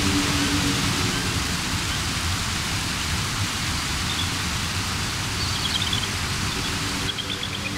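White-water rapids of a swollen river, a loud, steady rush of water. Music with high chirping notes comes in near the end.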